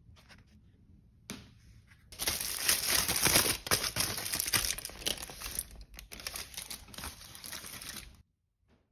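Aluminium foil wrap being opened by hand, crinkling and crackling for about six seconds before cutting off suddenly near the end.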